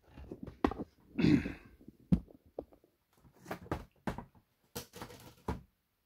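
Cardboard model-kit boxes and a poster being handled and set onto plastic shelving: a string of irregular thumps, taps and rustles, with a louder rustling rush about a second in.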